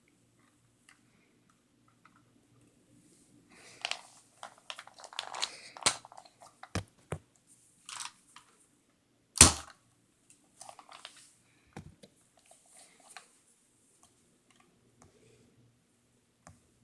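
Nerf Elite Firestrike dart blaster being handled: scattered plastic clicks and rattles, then a single sharp shot about nine seconds in, followed by more plastic clicking.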